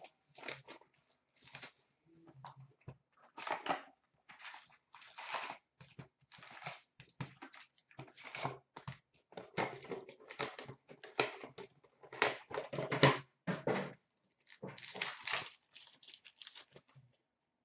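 A hockey card box and its foil packs being torn open and crinkled, with cards rustled between rips: a string of short, irregular tearing and crinkling noises with brief pauses.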